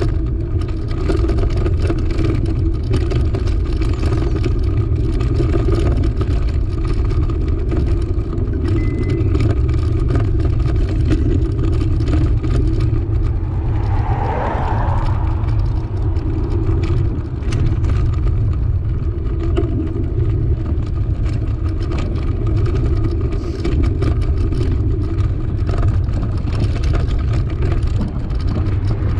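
Steady wind rush and rumble on the camera microphone of a moving bicycle. About halfway through, a car passes going the other way, rising and fading.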